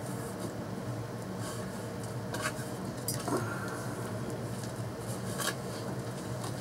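Hands pressing and working gritty potting soil into a terracotta pot: rustling, crunching soil with scattered sharp ticks of grains against the clay, three of them louder. A steady low hum sits underneath.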